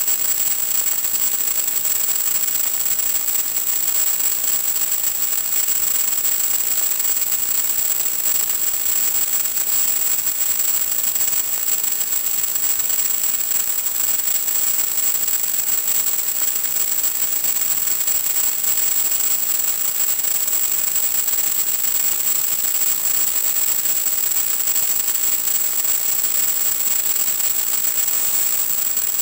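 Steady static hiss, strongest in the treble, with a constant thin high-pitched tone running through it: the empty audio channel of an analog FPV video receiver.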